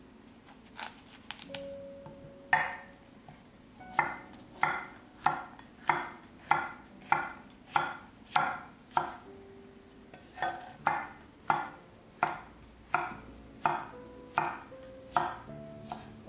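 Chef's knife slicing shiitake mushrooms on a wooden cutting board: a steady run of sharp knocks of the blade on the board, about one and a half a second, with a short pause midway.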